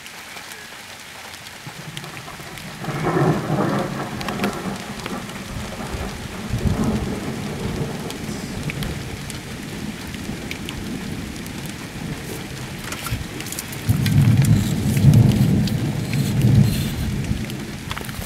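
Rain hitting a car's glass and roof, heard from inside the car, with thunder rumbling twice: once about three seconds in and again, louder and longer, near the end.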